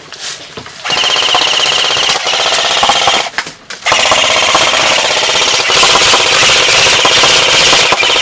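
Airsoft guns firing full-auto in two long, rapid strings, the first about a second in and the second from about four seconds in, with a brief gap between them.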